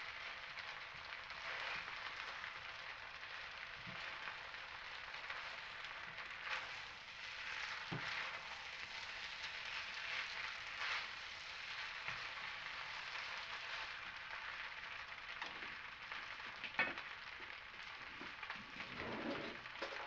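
Chicken fried rice sizzling steadily in a hot pan as it is fried with soy and oyster sauce, with a few short knocks, the sharpest about three quarters of the way through.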